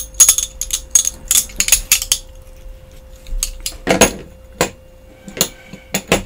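Thick handmade glass drinking straws clinking against one another and tapping on the tabletop as they are handled. A quick run of clinks comes in the first two seconds, then a few scattered taps, with one fuller knock about four seconds in.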